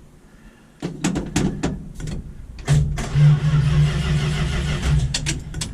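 1972 Dodge Demon's starter trying to crank the engine, which does not fire: a run of sharp clicks about a second in, a steady starter whir for about three seconds, then more clicking.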